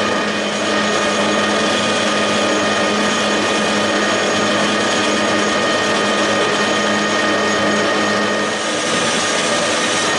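Metal lathe running with an aluminium bar spinning in its three-jaw chuck while a turning tool takes a cut. It is a steady mechanical whirr with several fixed whining tones from the drive.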